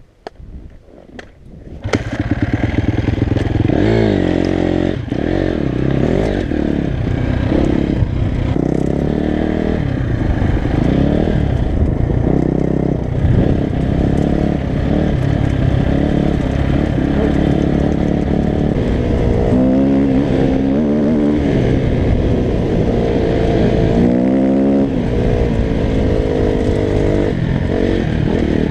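Husqvarna 250 enduro motorcycle engine starting up about two seconds in, after a few faint clicks. It then runs loudly, revving up and down again and again as the bike is ridden over rough off-road ground.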